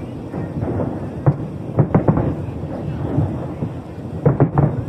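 Aerial fireworks bursting over a continuous booming rumble, with sharper cracks in quick succession about a second and two seconds in and again near the end.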